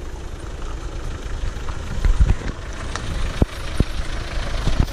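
Mitsubishi L200 pickup's engine running at low revs as the truck rolls slowly down a stone-paved track and passes close by, with a few sharp knocks in the second half.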